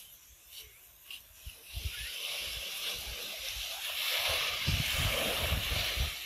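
Small waves washing onto a sandy beach: a steady hiss of surf that swells from about two seconds in, with irregular low thumps and rumble underneath.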